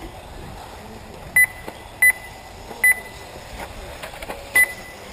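Four short, sharp electronic beeps at uneven intervals, the loudest sound here, typical of an RC race lap-counting system as cars cross the timing loop, over a faint steady background.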